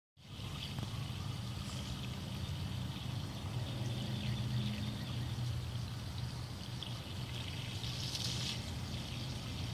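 A jet of water spraying and splattering steadily onto grass, a little louder about eight seconds in, over a steady low hum.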